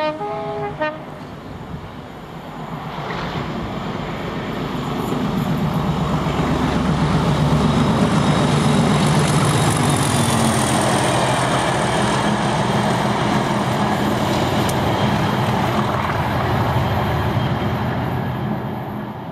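A Direct Rail Services Class 37 diesel locomotive, with its English Electric V12 engine, gives a short two-note horn blast at the start. Its engine then runs with a growing rumble as it passes, loudest about halfway through, and eases slightly near the end.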